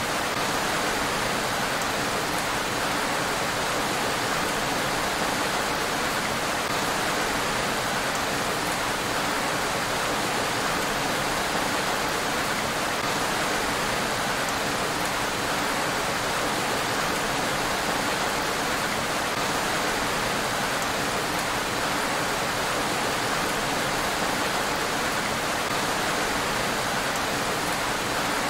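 Steady rain falling on a road, an even hiss that does not change.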